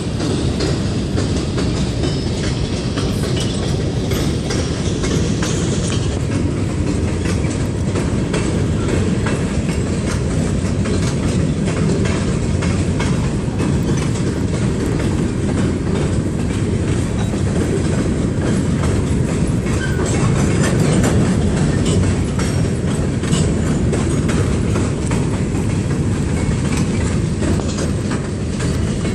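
Freight train of Kansas City Southern de México gondola cars rolling past: a steady low rumble with the clatter and clack of steel wheels over rail joints.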